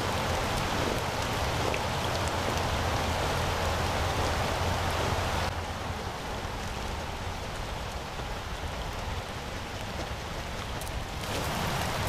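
Rain falling on a pond's surface: a steady hiss of drops on water. About halfway through it turns quieter and duller for several seconds, then comes back up near the end.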